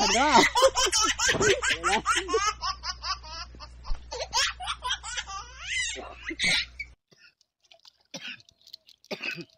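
Laughter, quick and high-pitched, over a low steady hum, cutting off abruptly about seven seconds in.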